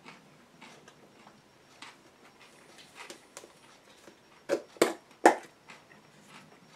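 Clear plastic deli container's snap-on lid being pried off: a few loud, sharp plastic cracks and crackles about four and a half to five seconds in, after scattered light clicks and taps of tableware.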